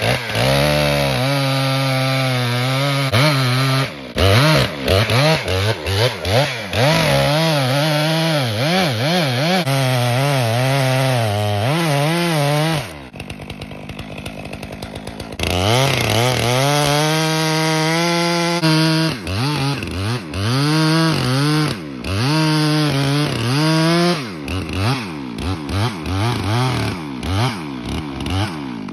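Two-stroke Stihl MS 462 chainsaw cutting into the trunk of a Douglas fir at full throttle, its pitch sagging and recovering as the chain bites. About halfway through it drops to idle for a couple of seconds while the notch piece comes out, then it cuts again with repeated revving up and down.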